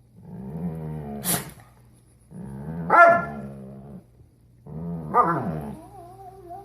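Dogs play-growling at each other in rough play, in three rumbling stretches of a second or more that swell into louder yelping peaks. A sharp sneeze cuts in about a second in, and a short wavering whine follows near the end.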